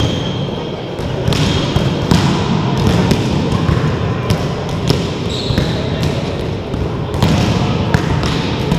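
Indoor volleyball rally in a large gym hall: sharp thuds of the ball being struck and hitting the floor, players' feet on the court and scattered voices, all with the hall's echo.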